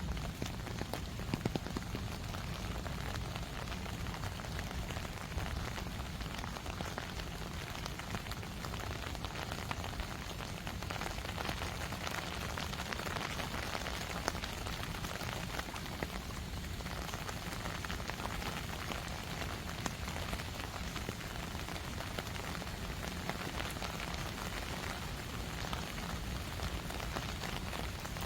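Steady rain falling, with many small drops ticking close by and a few louder drops about a second and a half in.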